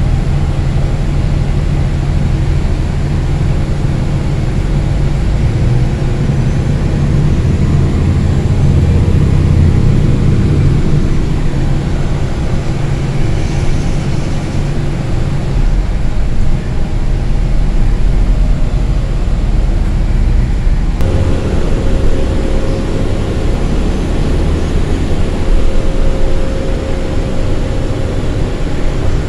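New Flyer city bus heard from on board, its engine and drivetrain running with a low rumble and road noise, the engine pitch shifting as it pulls away. About two-thirds of the way through, a steady whine joins in and holds.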